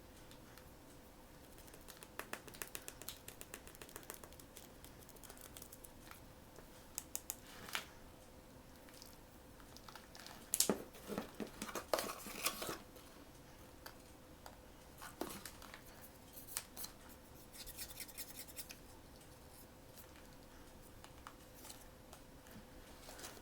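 Hands handling blind-box packaging: scattered bursts of plastic crinkling, small clicks and scratching, the loudest cluster a little before halfway. A faint steady hum runs underneath.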